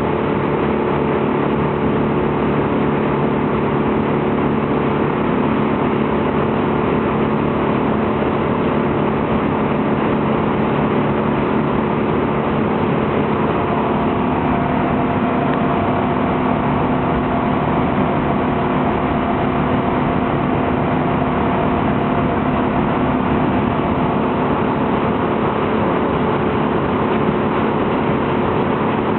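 Motorboat engine running steadily at a constant speed; its note shifts slightly about halfway through.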